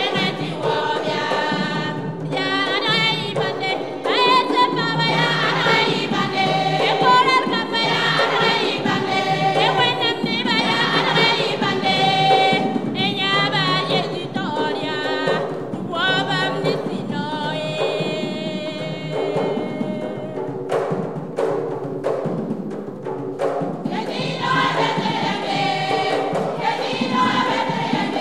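Women's choir singing a gospel song in harmony over cajón box-drum beats. About twenty seconds in, the voices thin out for a few seconds and the drum strokes stand out, then the full choir comes back in.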